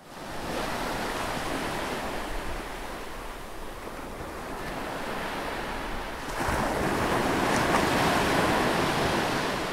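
A steady rushing noise like surf washing in, which swells louder about six seconds in and eases toward the end.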